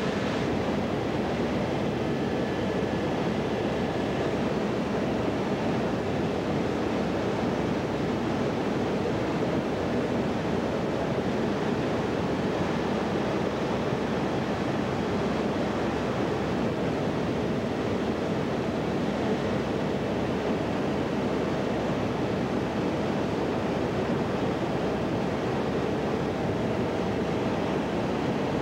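Steady engine and airflow noise inside an aircraft cabin in flight: an even rushing drone with a faint steady hum, unchanging throughout.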